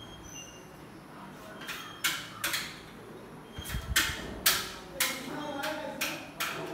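A run of short, sharp scraping and knocking noises, about ten in four seconds, some coming in quick pairs, from hands working a fitting at the top corner of an aluminium window frame. A dull thud lands near the middle of the run.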